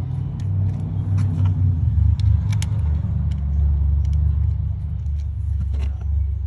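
A steady low rumble, with scattered light clicks and taps as ignition coils and their small screws are fitted back onto the engine's valve cover.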